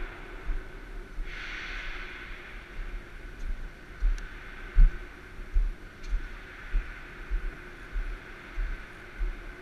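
A person breathing out heavily once, about a second and a half in, over a steady hum and a scatter of dull low thuds, the loudest about halfway through.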